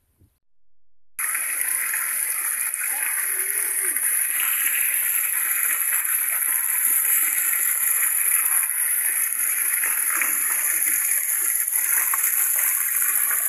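Fountain jets splashing steadily into a stone basin. The water starts suddenly about a second in, after a near-silent moment.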